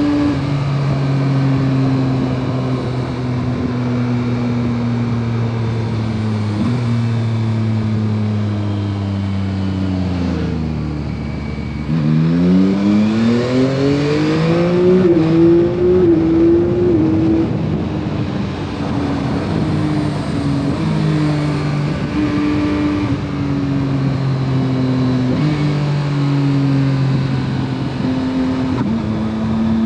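2021 Yamaha MT-09 SP's three-cylinder engine through its stock exhaust, heard from the rider's seat. Its pitch sinks slowly as the bike rolls off, then about twelve seconds in it revs up hard under acceleration. It then eases back with several stepwise pitch changes as the rider shifts gears.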